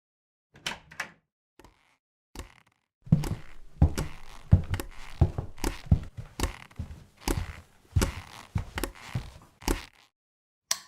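Heavy thuds and knocks with a small-room echo: a few separate knocks at first, then, about three seconds in, a fast, irregular run of heavy blows, roughly three a second, that stops abruptly near the end, like frantic pounding.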